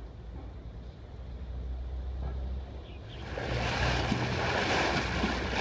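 Motorboat under way: a low engine hum, and from about three seconds in the loud rush and splash of the wake along the hull, with wind on the microphone.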